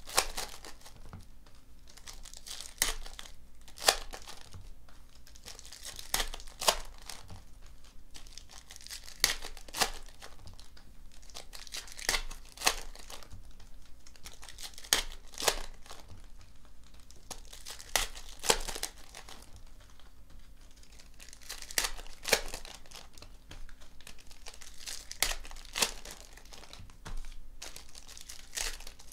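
Foil trading-card packs being torn open one after another, the wrappers crinkling, with a sharp tear every few seconds, often two close together.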